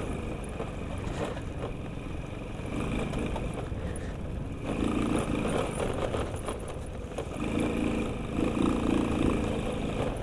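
Sanya X50 110cc moped engine running as it is ridden over a rough dirt track, its note rising and falling with the throttle. It gets louder about five seconds in and again near the end.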